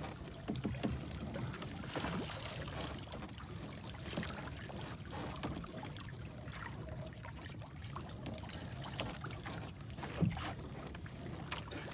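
Sea water lapping against the side of an outrigger fishing boat, with wind on the microphone and scattered small knocks of the boat's wooden fittings; one sharper knock about ten seconds in.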